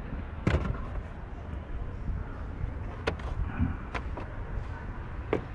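A few sharp clicks and knocks of hands handling a car's oil filler cap and oil bottle while topping up the engine oil, over a steady low outdoor rumble.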